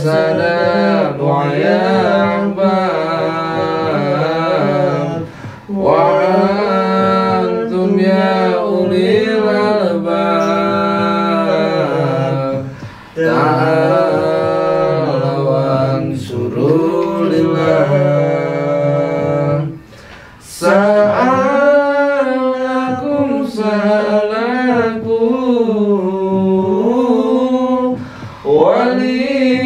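Chanted manaqib recitation, an Islamic devotional text, sung in long melodic phrases with short breaks between them about every seven to eight seconds.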